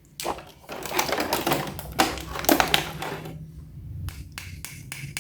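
Hard plastic being handled: about three seconds of dense clattering and crackling, then a handful of separate sharp clicks.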